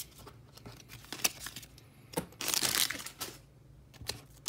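Pokémon trading cards being handled and set down on a pile: a few light taps and a short crinkly rustle a little past halfway.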